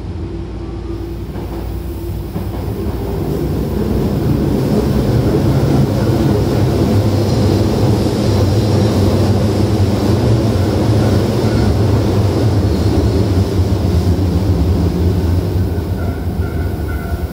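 Osaka Metro Sakaisuji Line subway car running, heard from inside the car: a steady rumble of wheels and running gear. It grows louder over the first few seconds and holds steady, easing slightly near the end.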